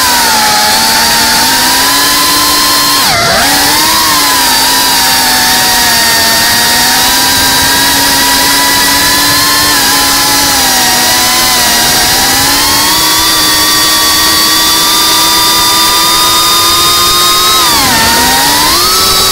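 FPV racing drone's brushless motors and propellers whining in flight, the pitch rising and falling with the throttle. The pitch dips sharply and recovers about three seconds in and again near the end.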